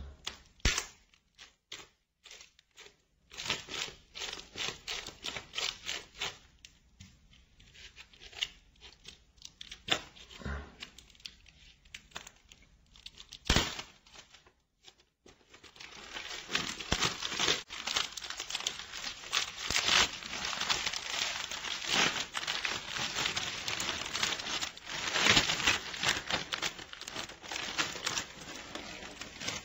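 Plastic shrink wrap on a DVD case being torn open with the help of a pencil and crinkled off. Scattered crackles and taps come first, then near-continuous crinkling from about halfway through.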